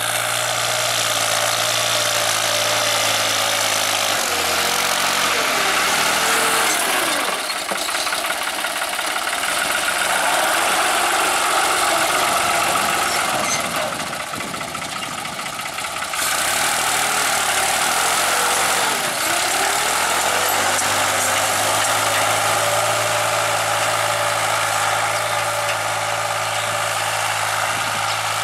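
New Holland tractor's diesel engine running steadily while pulling a tine cultivator through the soil. Its pitch dips and recovers twice, a few seconds in and again just past the middle.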